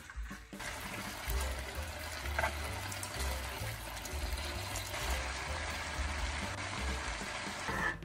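Marinated beef sizzling as it is stir-fried in a frying pan, a steady hiss that starts about half a second in and cuts off suddenly at the end.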